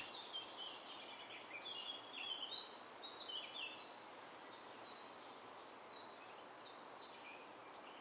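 Small birds chirping in the background over a faint outdoor hiss: many short, quick chirps, busiest in the first half and thinning out towards the end.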